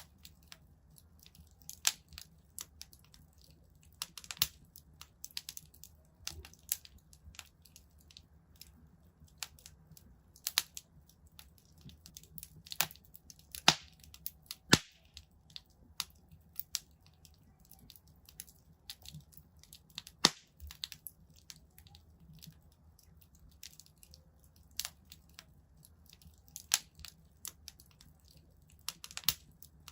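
Wood fire crackling in a fireplace: irregular sharp pops and snaps, a couple of louder ones around the middle, over a faint steady low rumble.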